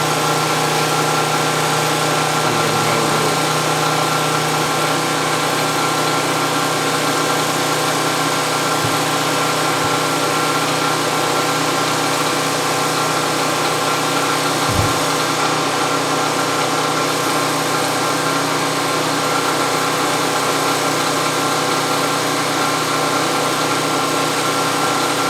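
Small single-cylinder four-stroke gas engine running steadily at constant speed, heard from about 25 feet away, with no change in pitch throughout.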